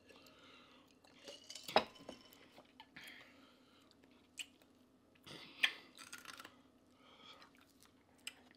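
Close-miked chewing and mouth sounds of people eating, with a few short sharp clicks of dishes or utensils, the loudest about two seconds in.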